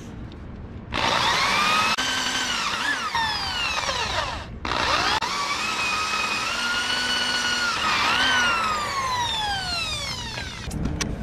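Electric drill boring a hole through a steel chair frame, in two runs with a short stop between. At the end of each run the motor's whine falls in pitch as it slows.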